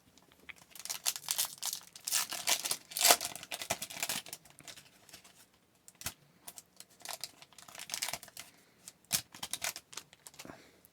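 Foil wrapper of a hockey trading-card pack being torn open and crinkled: an irregular run of crackles and rips.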